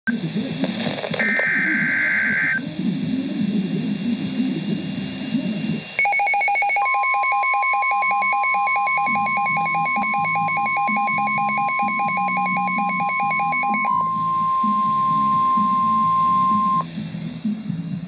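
NOAA Weather Radio receiver sounding an alert. A short burst of digital data screech comes about a second in. From about six seconds the radio's own rapid, evenly pulsing electronic alarm plays over the steady single-pitch 1050 Hz warning alarm tone. The tone then holds on alone and cuts off abruptly near the end. Together the tones signal that a warning, here a Special Marine Warning, is being broadcast.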